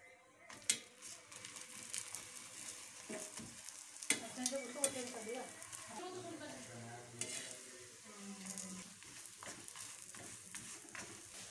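Oiled paratha sizzling as it fries on a flat griddle (tawa), with occasional sharp clicks and scrapes as it is turned and pressed down.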